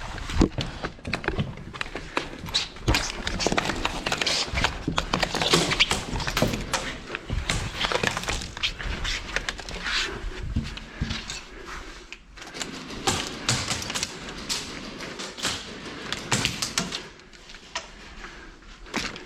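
A dense, irregular clatter of sharp cracks and knocks from an indoor airsoft game: shots, BB hits and gear knocking about. It thins out near the end.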